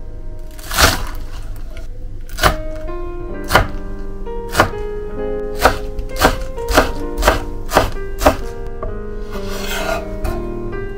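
Kitchen knife chopping through a bunch of small green onions onto a wooden cutting board: about ten sharp chops, slow at first and quickening to about two a second, then a short scrape near the end as the sliced onion is gathered against the blade. Background music plays underneath.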